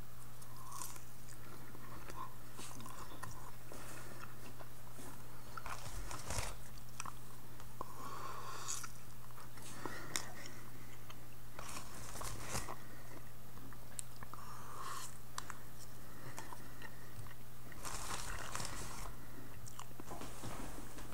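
Scattered soft rustles, crinkles and handling noises from a plastic bag of marshmallows being handled and marshmallows being set down, over a steady low hum.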